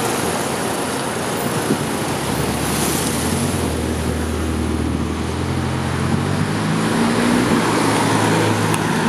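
Volkswagen Scirocco R's 2.0 TSI turbocharged four-cylinder running through an aftermarket downpipe, running steadily and then pulling away, its engine note rising in pitch for a stretch before dropping back about seven and a half seconds in.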